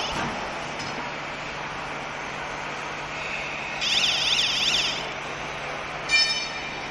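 A warbling electronic alarm tone sounds for about a second, halfway through, over a steady low machine hum. A short, sharp beep follows near the end.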